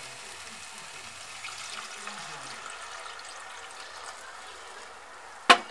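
Milk poured into a hot wok of roasted dry-fruit paste and sugar, a steady soft hiss of pouring liquid. A single sharp knock near the end.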